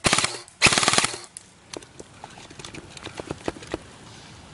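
Airsoft rifle firing two short full-auto bursts in the first second or so, a rapid rattle of shots. These are followed by scattered fainter clicks and snaps.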